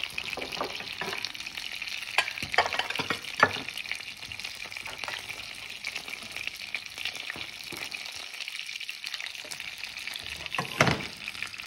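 Mushrooms with spring onion sizzling in a hot frying pan, with a spatula scraping and knocking against the pan a few times, the loudest knock near the end.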